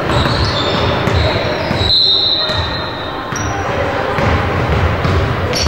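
Sound of basketball play in a gym: the ball bouncing on the hardwood court, sneakers squeaking, and players' and spectators' voices echoing in the hall.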